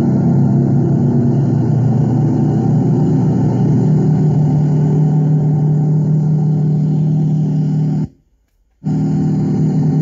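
Crawler bulldozer's diesel engine running steadily as the machine pushes sand with its blade. The sound drops out for under a second about eight seconds in, then resumes.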